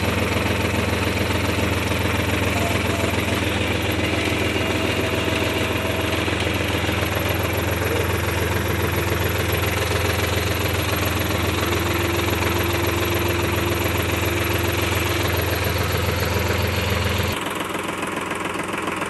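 Sonalika S50 tractor's diesel engine idling steadily. About seventeen seconds in, the sound drops suddenly and turns quieter.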